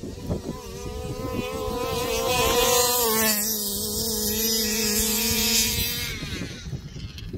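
Two small two-stroke petrol engines, a Zenoah 25.4cc in an HPI Baja and a 34cc O'Neill Brothers Racing engine in a King Motor Desert Truck, buzzing at full throttle as the RC cars accelerate away in a drag race. The pitch climbs for the first few seconds, then the sound fades away about six seconds in as the cars get farther off.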